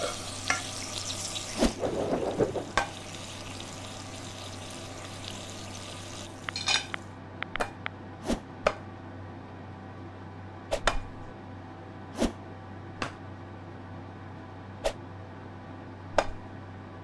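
Pancake sizzling in a frying pan, a steady hiss that stops about six seconds in. Then about ten sharp clicks at irregular intervals over a low steady hum.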